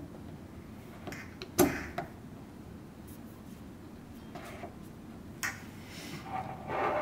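Clear plastic parts of a locust respiration chamber being handled and fitted together: a few knocks and clicks, the sharpest about one and a half seconds in, with rubbing and scraping near the end.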